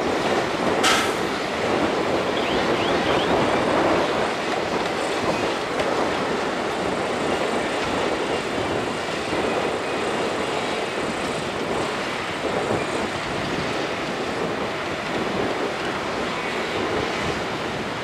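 Heavy diesel earthmoving machinery working: a steady, dense engine and machine noise, with a single sharp knock about a second in.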